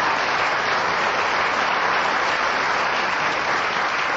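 Studio audience applauding, a steady dense clapping throughout.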